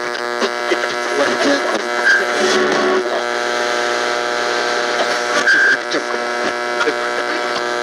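Steady electrical buzz with a dense stack of overtones, with scattered clicks and two short high beeps about two and five and a half seconds in: an electronic technology sound effect.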